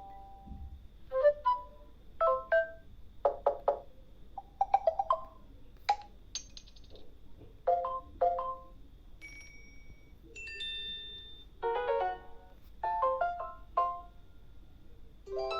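Samsung Galaxy Tab A 9.7 built-in alert tones played one after another: a string of short electronic chimes of a few notes each, with brief pauses between them.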